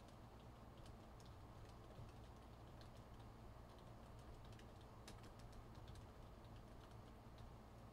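Faint, irregular clicking of typing on a computer keyboard, over a low steady hum.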